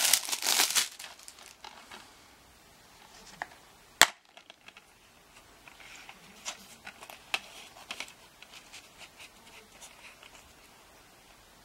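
Plastic shrink wrap crinkling as it is pulled off a DVD case, fading out after about a second. About four seconds in comes a single sharp snap, the plastic DVD case being popped open, followed by faint light clicks of the case being handled.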